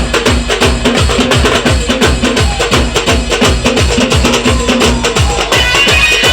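Band music driven by a fast, steady drum beat of about four hits a second over a repeated note. Near the end the drumming drops back and a brighter, sustained instrumental passage takes over.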